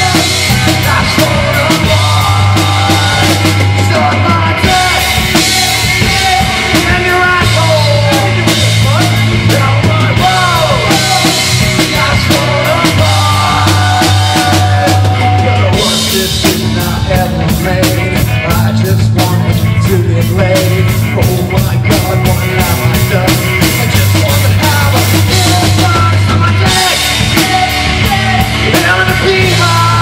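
Live rock band playing loudly: an electric guitar, a bass guitar and a drum kit.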